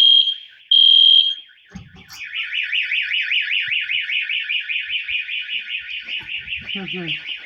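Fire alarm sounding: two long, loud high-pitched beeps, then about two seconds in it switches to a fast warbling tone pulsing about six times a second.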